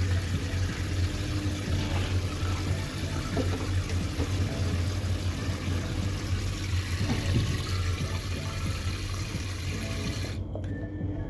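Steady rush of running water, as from a tap, cutting off abruptly near the end.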